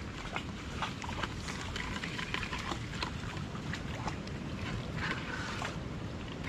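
Steady wash of river water around the wading men, with scattered light clicks and scrapes from a mud crab being worked free of a nylon gill net over a plastic bucket, and a short rustle about five seconds in.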